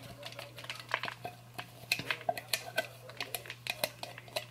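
Spatula scraping and tapping inside a plastic food-processor bowl, knocking finely chopped carrot out into a plastic container: a string of light, irregular scrapes and clicks.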